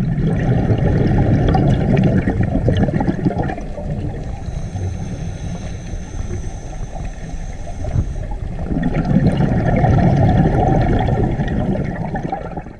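Water noise picked up by an underwater camera, a gurgling wash heaviest in the low end. It swells at the start, eases off, then swells again about nine seconds in.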